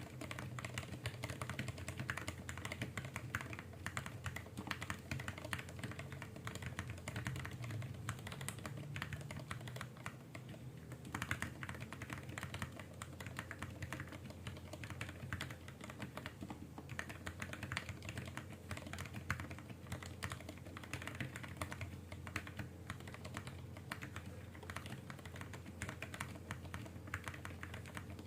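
Continuous fast typing on a 64-key mechanical keyboard with lubed Gateron Brown tactile switches, a plastic case dampened with foam, and GSA profile keycaps: a dense, irregular stream of keystroke clicks, with a short pause about ten seconds in.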